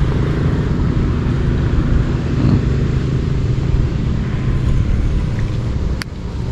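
Strong wind buffeting the microphone: a steady, loud low rumble with hiss above it. A single sharp click near the end.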